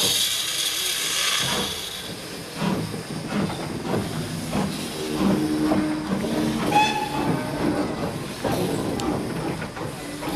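Bagnall industrial saddle-tank steam locomotive moving off slowly: steam hissing from the open cylinder drain cocks for the first couple of seconds, then uneven exhaust chuffs and clanking of the motion.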